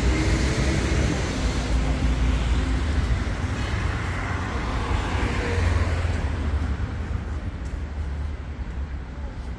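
Road traffic on a busy city street: motor vehicles passing close by with engine rumble and tyre noise, loudest in the first half and easing off near the end.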